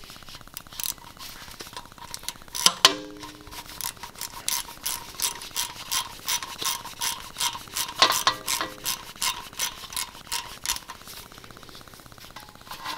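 Hand ratchet clicking in short, repeated strokes as it loosens the 10 mm bolt holding the ABS wheel-speed sensor on the rear axle. Two sharper metallic knocks that ring briefly come about three seconds in and again about eight seconds in.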